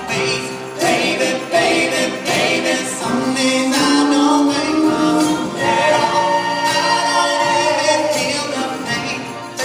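A male singer singing live with music, holding long sung notes.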